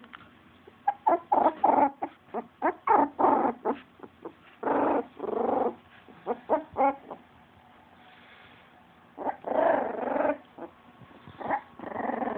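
Three-week-old puppies squeaking, whimpering and grunting in many short high cries. There are a few longer whines about a third of the way in, after two-thirds, and near the end.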